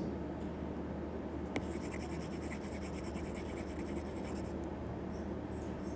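Faint, steady scratching of a stylus moving on a tablet screen as handwritten annotations are erased, with one small tick about one and a half seconds in, over a low steady hum.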